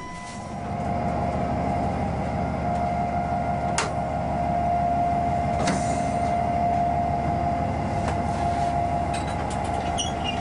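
The onboard machinery of a Class 140 (E 40) electric locomotive running steadily while it is being readied for service: a constant mid-pitched hum over a low rumble, with two short clicks about four and six seconds in.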